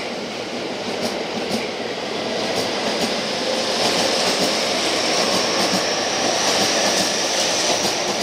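Toei Shinjuku Line 10-300 series electric train pulling out and running past the platform. Its wheels clack over the rail joints beneath a steady high whine, and the sound grows louder partway through.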